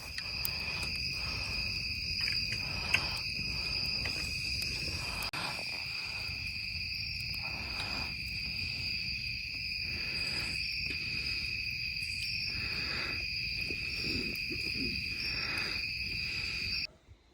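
Night insect chorus: a steady, unbroken high-pitched trill, over a low rumbling background. It cuts off suddenly near the end.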